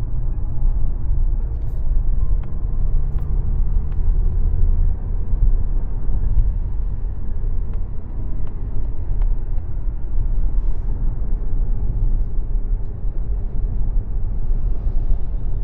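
2025 Mazda CX-30 with its 2.5-litre four-cylinder engine driving along: a steady low rumble of engine and road noise, with a few faint clicks.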